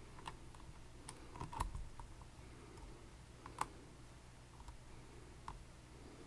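Sparse small clicks and ticks from lock-picking tools working inside a Dierre New Power high-security lock, the two sharpest about one and a half and three and a half seconds in.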